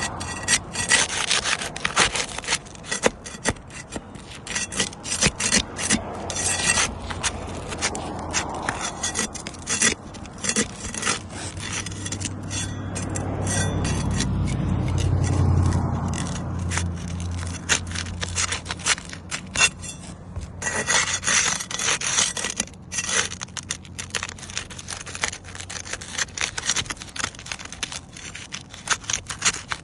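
Repeated scraping and rubbing with many small irregular clicks. A low hum swells and fades around the middle.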